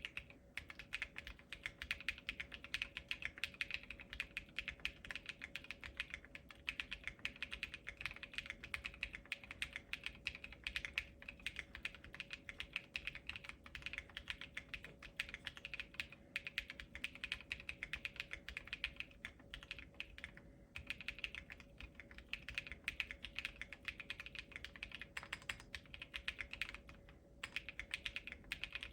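Fast continuous typing on a mechanical keyboard with lubed Durock Sunflower tactile switches on a POM plate and OSA-profile keycaps: a dense run of light clacks, pausing briefly a couple of times.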